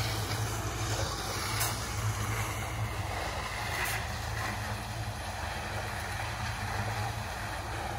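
Portable drum concrete mixer running with a steady low hum, with a couple of faint knocks about a second and a half and four seconds in.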